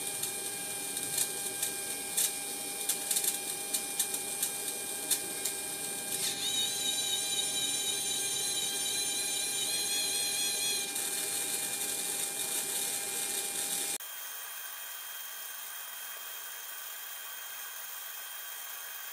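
Kollsman servo altimeter's small servo motor and gear train running, driving the pointer and drum counter to follow the synchro input. First comes a run of light clicks, then from about six seconds in a high whine that wavers in pitch for about five seconds, over a steady hum. Near the two-thirds mark the sound drops to a quieter hiss.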